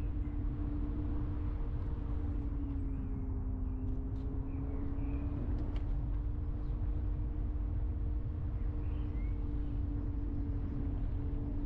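A car driving along at a steady pace: the engine runs with a steady tone over a low road rumble. The engine note dips slightly a few seconds in and then recovers.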